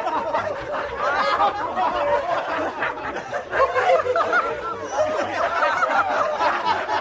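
Several people laughing and giggling at once, their voices overlapping throughout.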